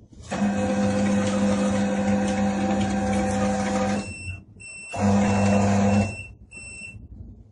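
Conveyor drive motor of a QMAX NF-1 needle detector running with a steady hum, stopping about four seconds in and running again briefly about a second later. Faint high beeping tones sound after it first stops.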